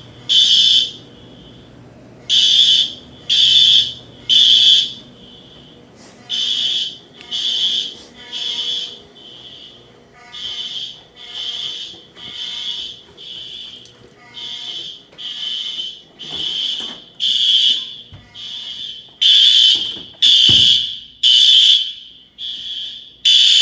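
Fire alarm horns, mostly Wheelock 34T electronic horns, sounding during a system test. They blast in the temporal-three evacuation pattern: three short blasts about a second apart, then a pause. Fainter horns out of step with the nearest ones fill the pauses through the middle, and the blasts grow loud again near the end.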